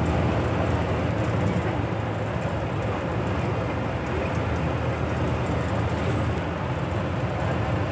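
Steady drone of a moving bus, engine and road noise heard from inside the cabin while it travels along a highway.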